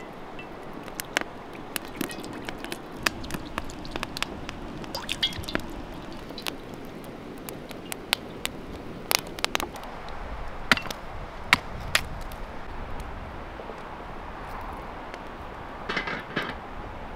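Wood fire crackling and popping, with sharp irregular snaps over a steady hiss of burning logs. A brief clatter comes near the end.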